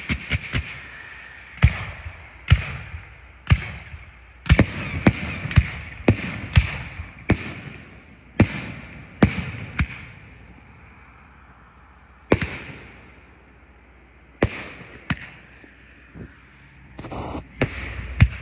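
Fireworks going off in a rapid string of sharp bangs as aerial shells burst, about one or two a second for the first ten seconds, then a few scattered bangs.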